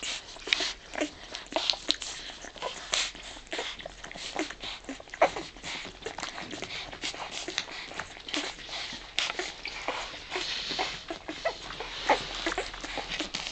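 Boxer puppies suckling at their mother: continual wet smacking and sucking clicks, with frequent small squeaks and whimpers from the pups.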